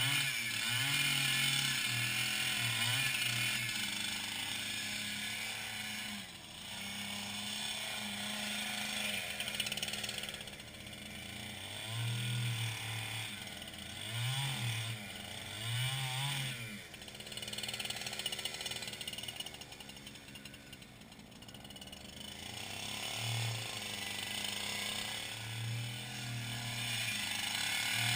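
Small engine of a powered ice auger running as it drills through thick lake ice, its speed rising and falling several times in the middle, dropping low around two-thirds of the way through, then picking up again near the end as the next hole is started.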